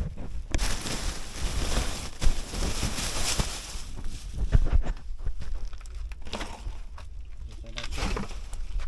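Rustling, crinkling and knocking of household clutter being handled and bagged, loudest in the first half, over a steady low rumble on the microphone.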